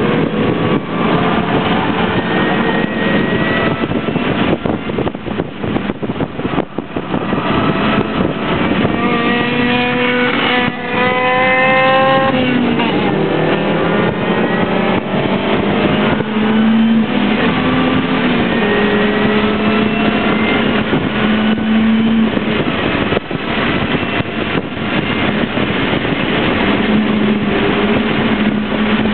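Mini Cooper's four-cylinder engine heard from inside the cabin at track speed, its revs repeatedly climbing under acceleration and falling at gear changes and lifts, with a long hard pull about a third of the way in. Tyre and wind noise run underneath.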